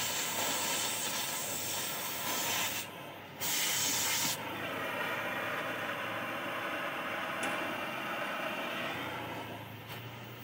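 Oxy-LPG cutting torch hissing loudly as it cuts steel. The hiss breaks off for a moment around three seconds in and comes back. About four seconds in it drops to a softer, duller rush that fades toward the end.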